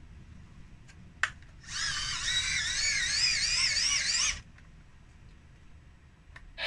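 A click, then the hand-cranked dynamo of a wind-up radio being wound for about two and a half seconds: a geared whine whose pitch wavers up and down with the uneven speed of the crank.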